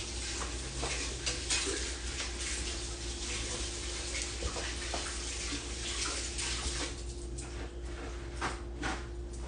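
Water running from a tap, with scattered light clinks and knocks as small bottle attachments are washed.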